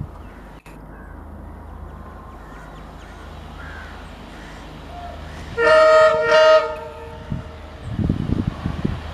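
WDG4 diesel locomotive approaching with its engine running steadily, then sounding its air horn in two short blasts about five and a half seconds in, the loudest thing heard. Low rumbling near the end.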